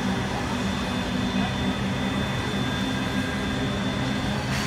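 Diesel-electric locomotives, CLF and CLP class, running with a steady low engine drone and a thin steady whine above it. A brief hiss comes near the end.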